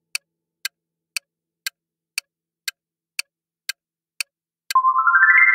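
Quiz countdown timer sound effect: a clock ticking about twice a second. Near the end the ticking gives way to a sustained electronic tone that steps upward in pitch, marking that the time is up.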